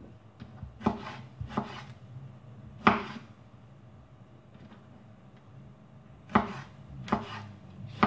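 Kitchen knife dicing tomatoes on a wooden cutting board: the blade knocks on the board one cut at a time, several knocks in the first three seconds, a quieter stretch, then a few more near the end.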